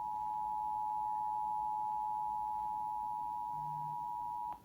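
Emergency Alert System attention signal: a steady two-tone alarm of two close pitches sounded together, the signal that an emergency alert message follows. It cuts off suddenly near the end.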